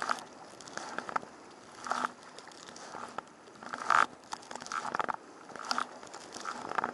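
Sea kayak paddle strokes on choppy water: the double-bladed paddle dips and splashes on alternate sides about once a second, with water slapping and crackling around the folding kayak's hull.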